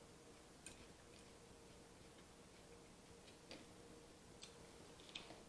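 Near silence, with a few faint, sharp clicks of a metal fork touching a glass plate as salad is picked up, over a faint steady hum.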